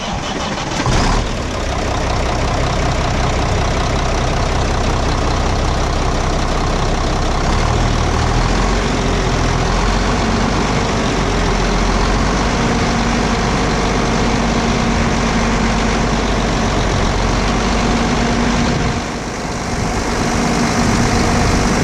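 Heavy diesel engine just started and running steadily at idle. A brief surge comes in the first second, and the level dips for a moment near the end.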